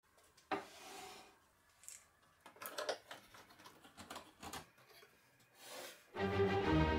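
Workshop handling sounds: a wooden board knocked down onto a wooden workbench and a screw clamp being tightened on it, a few sharp knocks and short scrapes, the loudest knock about half a second in. Bowed-string music starts near the end.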